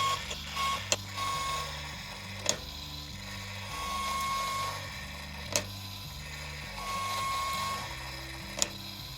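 SabreTooth automatic bandsaw blade sharpener's indexing mechanism cycling with the grinding wheel not yet running: a steady low motor hum, a whine that comes and goes, and a sharp click every two to three seconds as the mechanism moves up and down over the profiler.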